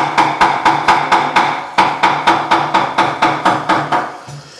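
Metal ladle knocking rapidly against an aluminium soup pot, about five knocks a second with a short break partway, each knock ringing at the same pitch. The knocking stops shortly before the end.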